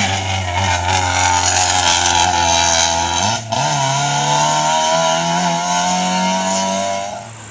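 Race car engine running hard at high revs, a buzzing tone, with a short break about three and a half seconds in before the pitch climbs again; it drops away near the end.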